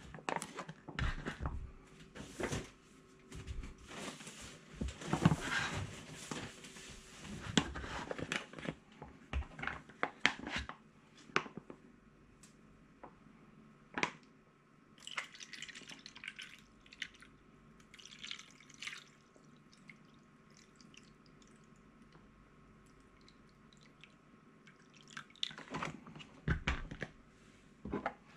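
Handling of plastic ice-cube trays and a plastic bag on a wooden table: scattered clicks, light knocks and rustling, with a quiet stretch in the middle.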